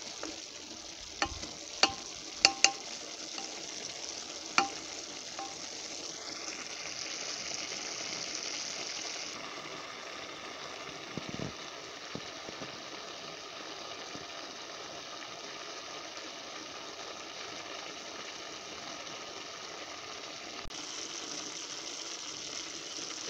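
Chopped greens and potatoes sizzling in an aluminium pot, stirred with a wooden spoon that clacks against the pot five or six times in the first few seconds. After that, a steady sizzle.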